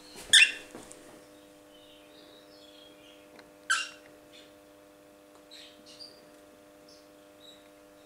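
Young cockatiels calling: two short, loud, harsh calls about three seconds apart, with soft quiet chirps in between.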